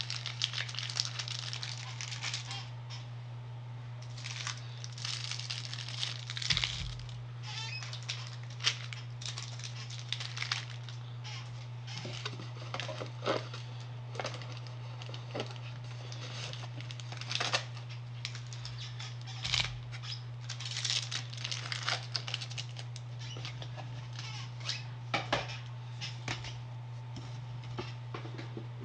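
Foil booster-pack wrappers and packaging crinkling and rustling as they are handled, in irregular short crackles, over a steady low hum.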